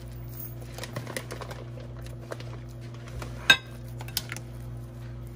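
A metal knife scraping and tapping against a bowl while cheese is mixed into mashed baked-potato filling. There are light scattered clinks and one sharp, louder clink about three and a half seconds in, over a steady low hum.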